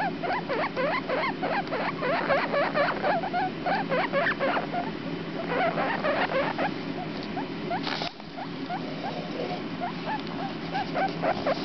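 Four-day-old guinea pig pups squeaking: rapid short high peeps, several a second, thinning out after a brief rustle about eight seconds in, over a steady low hum.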